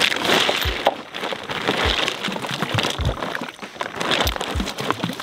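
Plastic sacks full of rocks rustling and crinkling as they are handled, with a few dull low thumps of the rocks shifting on a paddleboard.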